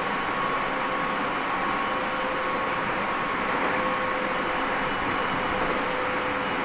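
Tobu 30000 series electric train running at steady speed, heard from inside a motor car: steady rail and running noise with a faint, even whine.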